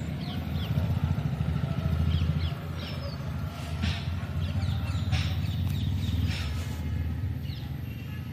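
A steady low rumble with short, high chirps scattered over it.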